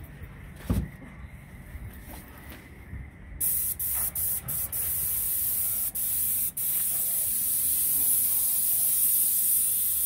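Graco Ultra Max II 490 airless paint sprayer gun, fitted with a 310 fine-finish tip at three-quarter pressure, spraying paint: a loud, high, even hiss that starts about three and a half seconds in, breaks off briefly a few times, then runs steadily. A low thump comes near the start.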